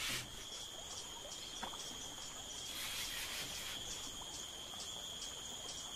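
Insects trilling in a steady high-pitched tone, with a fainter, higher pulsing chirp above it.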